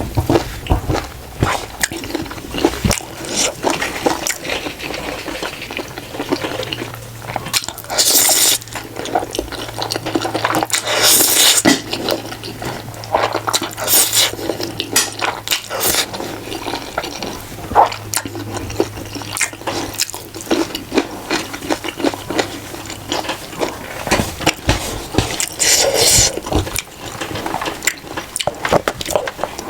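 Close-up eating sounds: noodles slurped in repeated noisy bursts, with chewing and small utensil clicks in between.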